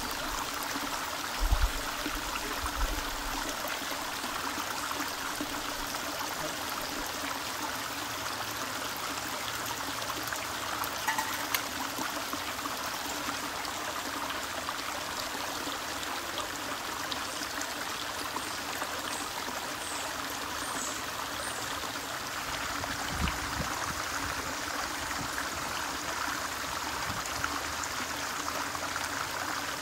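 Shallow stream running steadily over flat rock, a constant water rush, with a few dull low bumps near the start and again about two-thirds of the way through.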